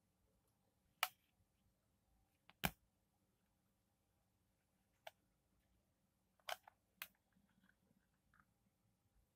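Handling noise from a small plastic pocket radio: a handful of sharp clicks and light knocks as it is turned over and its back battery cover is worked open. The two loudest knocks come about one and two and a half seconds in, with a few quieter clicks later.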